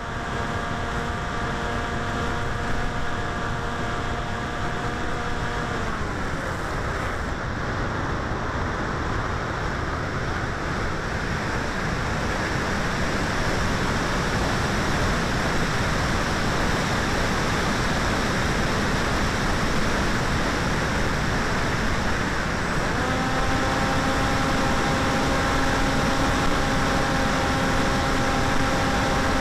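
Electric motor and propeller of a 900 mm foam flying wing, heard from on board, running with a steady whine over constant wind rush. About six seconds in the whine falls in pitch and dies away as the wing glides on wind noise alone. Near the end the motor comes back on at a slightly higher pitch.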